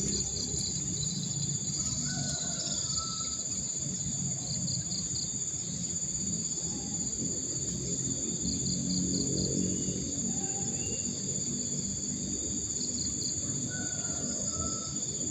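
Insects shrilling steadily in several high tones, with short bursts of rapid chirps every few seconds, over a low even rushing noise from the river. A few faint short bird calls come through.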